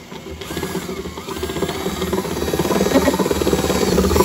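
Cordless drill running, its bit cutting into plastic, growing louder as it bites in.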